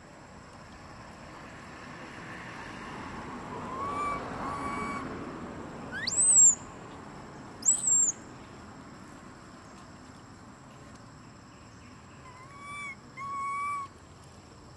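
Short, high-pitched animal calls: a pair of short hooting calls about four seconds in and again near the end, and two louder, shrill squeals in between, the first sliding sharply upward. A steady high insect hum runs underneath.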